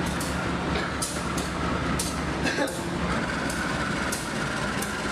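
GE CC201 diesel-electric locomotive rolling slowly into a station, its engine a steady low drone, with irregular sharp clicks along the way.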